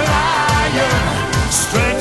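A pop song with a quick steady drum beat and a bending melody line.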